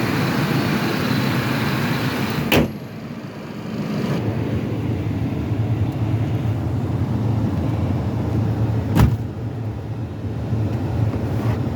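Pickup truck engine running steadily after being restarted on a charged battery. A door shuts with a sharp knock about two and a half seconds in, after which the sound is muffled as heard from inside the cab, and a second knock comes near the end.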